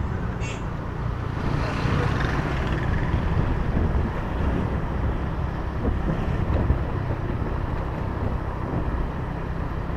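Wind buffeting the microphone over the steady engine and road noise of a vehicle travelling along a road.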